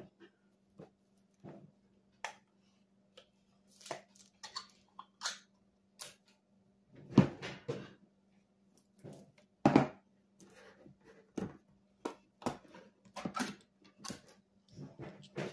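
Irregular clicks and knocks of kitchenware being handled on a counter, with two heavier thumps about seven and ten seconds in, over a faint steady hum.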